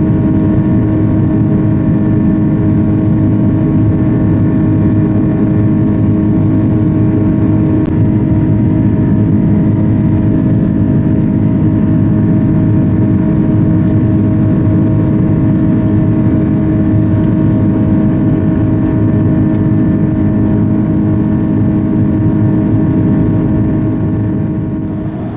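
Airbus A330-300 cabin noise in cruise: a steady loud rush of airflow and engine noise with a constant low hum, fading out near the end.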